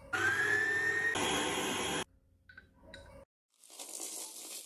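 Electric stand mixer motor running for about two seconds, its whine rising in pitch as it speeds up. Near the end there is a short hiss.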